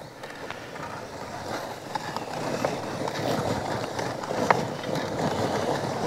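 Hand-cranked portable camping washing machine being wound: the drum turns with soapy water churning inside, a continuous churning noise with small clicks that grows louder over the first few seconds and then keeps on steadily.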